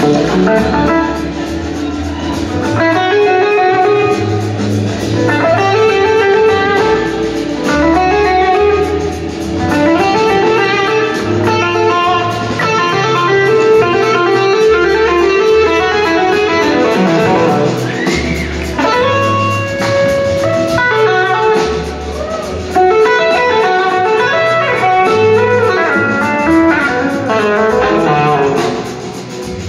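Live blues-rock band playing, with an electric guitar taking the lead over bass, drums and keys; some of the guitar's notes slide up and down in pitch.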